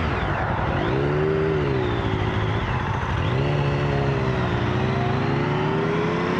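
Triumph 1050's three-cylinder engine accelerating hard through the gears. The revs drop sharply at the start and again about three seconds in, then climb steadily.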